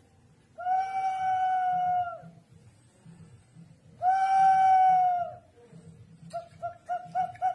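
Ceramic Andean whistling jar rocked by hand so its built-in whistle sounds an animal-like call. Two long steady whistles of about a second and a half each, each dipping slightly in pitch as it ends, then near the end a quick run of short whistles, about four a second.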